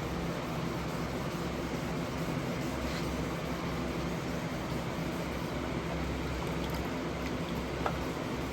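Steady mechanical hum with an even hiss, like a running fan or motor, with a single faint click near the end.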